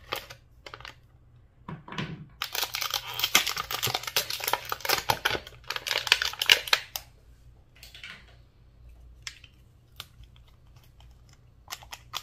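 Thin clear plastic packaging tray crinkling and crackling as small nail polish bottles are pulled out of it, a dense run of crackles lasting about five seconds from about two seconds in. Scattered light clicks and taps before and after.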